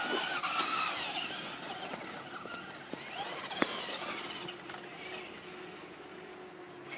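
Traxxas Slash RC truck's electric motor whining in rising and falling glides as the truck speeds up and slows, growing fainter as it drives off. There is a single sharp click about three and a half seconds in.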